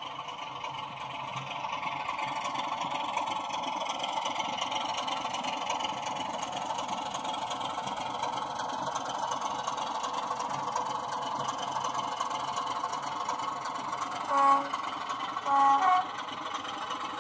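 OO gauge Class 33 model's DCC sound decoder playing a Sulzer eight-cylinder diesel engine running as the locomotive moves, through the model's small speaker. Two short horn blasts sound about a second apart near the end, the second a little longer.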